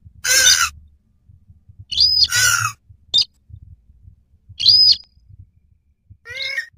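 Lure-call recording of a blue swamphen (purple swamphen) and a sintar rail calling in duet: about half a dozen short, harsh calls with pauses between them, two with a high arching whistle. The last call, near the end, is quieter.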